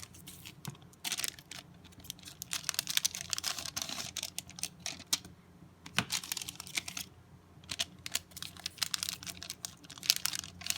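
Trading cards handled and flipped through one after another: an irregular run of small clicks and card-stock rustles.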